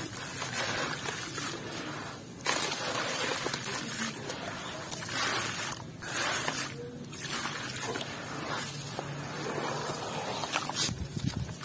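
Crumbly sand-and-cement chunks broken by hand and poured into a plastic basin of water: gritty splashing in repeated handfuls with short pauses between. Near the end, hands squelch and slosh the wet slurry.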